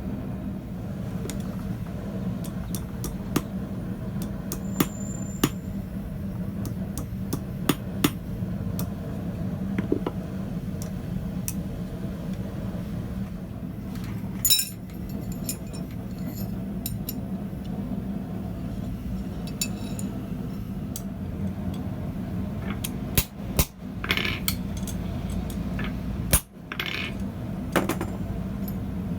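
Blacksmith's tools and hot iron clinking and tapping at irregular intervals, light metal-on-metal contacts with a few heavier knocks, over a steady low hum.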